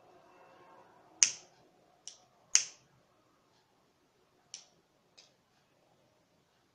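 A handheld lighter being clicked, five sharp clicks at uneven intervals, the second and fourth the loudest, as it is struck to melt and fuse the end of a macrame cord.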